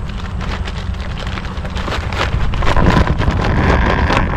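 Wind buffeting the microphone, with the crackling rustle of a woven plastic sack and nylon mesh net being handled as fish are tipped from the net into the sack.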